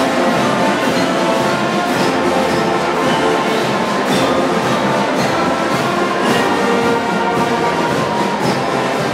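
Band music with brass instruments playing a steady piece.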